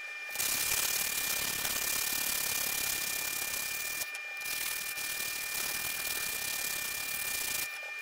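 Abrasive paper wrapped on a wooden stick rubbed back and forth along a clamped steel knife blade to sharpen its edge, a steady rasping with a short break about four seconds in. A faint steady high-pitched tone runs underneath.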